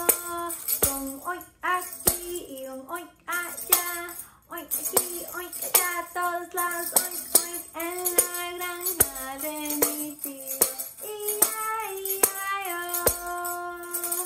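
A woman singing a children's song, with a tambourine struck and shaken on the beat.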